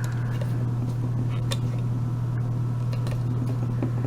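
Steady low electrical-sounding hum with a few faint light clicks scattered through it.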